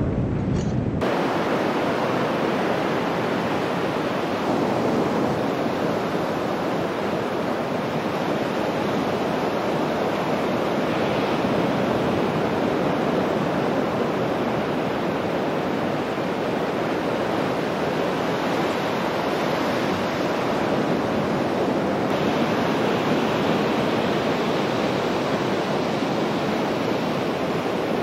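Steady rush of surf breaking on a sandy beach.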